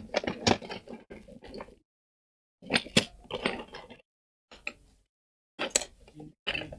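Small hard tools and parts clicking and clattering in several short bursts, from rummaging for a soldering iron tip.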